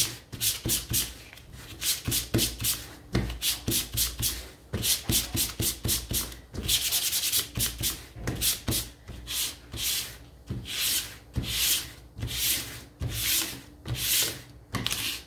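Hand sanding with 400-grit sandpaper over a painted wooden windmill cutout: short back-and-forth rasping strokes, about two a second, with a brief pause about four seconds in. The sanding smooths the roughness left by the first coat of paint.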